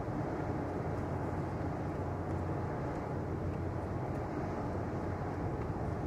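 Steady low rumble of distant city traffic and machinery, with a faint even hum underneath.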